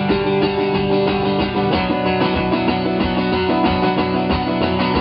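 Guitar music: plucked and strummed guitar chords over a steady low pulse, with no singing, sounding dull with no bright top end.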